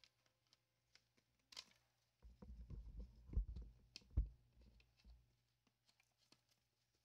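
Close handling noise from a plastic bottle and its cap being worked in the hands: a brief scrape, then a couple of seconds of low rumbling bumps and sharp clicks, loudest about midway, fading to small clicks.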